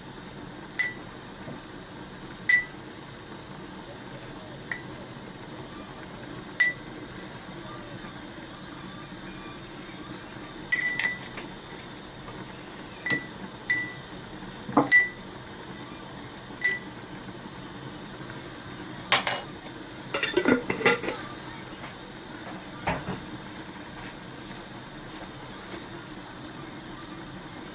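Metal teaspoon clinking against a dish, one sharp tap with a short ring every second or two, as spoonfuls of ground spice are measured out.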